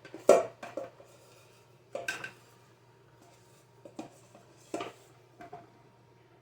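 A spoon clinking and knocking against a metal muffin pan while batter is spooned into the cups: about six short, separate clinks, the loudest just after the start.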